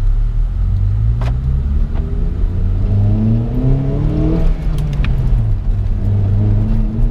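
Honda Civic's engine and aftermarket "fart cannon" muffler heard from inside the cabin, rising in pitch as the car accelerates for about three seconds, then dropping back as the driver eases off and settling to a steady cruise.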